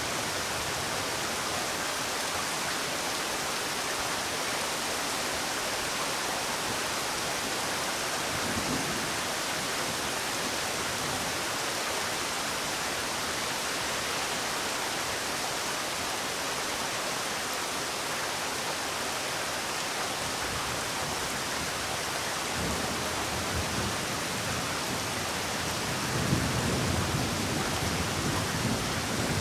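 Steady rain falling, an even hiss without let-up. A low rumble swells briefly a third of the way in, and a stronger one near the end.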